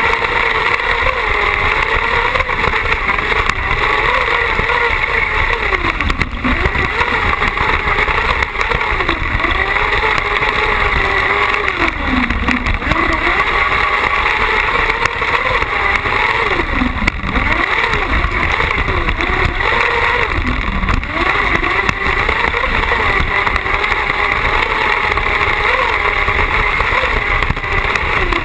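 Carcross buggy's engine running at high revs, heard onboard, its pitch dropping sharply and climbing back again several times, with steady wind and dirt noise on the microphone.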